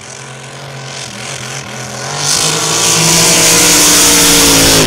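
Racing powerboat engine at speed, getting louder and rising in pitch about two seconds in, then running loud, with its pitch dipping slightly near the end as it goes past.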